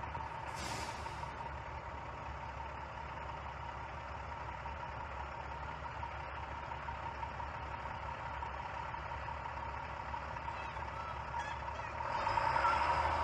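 Engine of a large vehicle running steadily, growing louder near the end.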